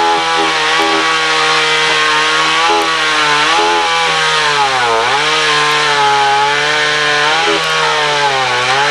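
Chainsaw running at high revs while cutting wood, its pitch sagging under load about halfway through and again near the end, then picking back up.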